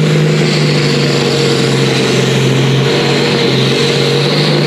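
Diesel engine of a pulling tractor at full load, hauling the sled down the track. It runs at steady high revs, its pitch dipping slightly about half a second in and then holding.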